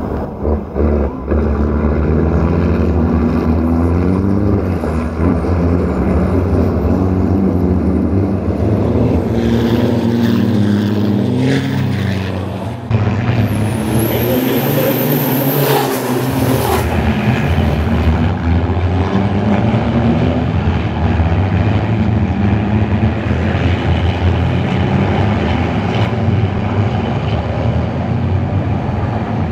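Several race trucks' turbodiesel engines running hard on a wet track, their notes rising and falling as they accelerate and shift gears, over a steady hiss of tyres and spray.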